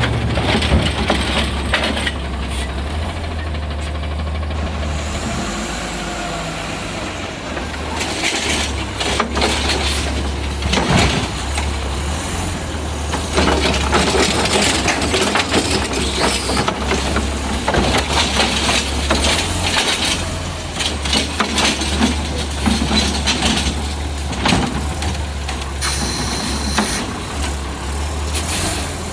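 Automated side-loader garbage truck (Heil Rapid Rail body, natural-gas Autocar chassis) running, its low engine drone stepping up and down every few seconds, with scattered clanks and knocks and a brief hiss near the end.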